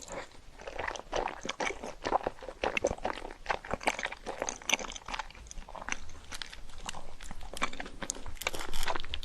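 Close-miked eating of crunchy food: a steady run of crisp crunching bites and chewing, louder near the end.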